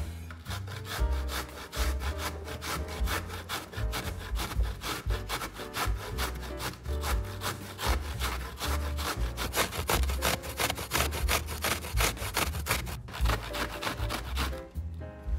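Food being grated on a hand grater: quick, repeated rasping strokes with a short break near the end, over background music.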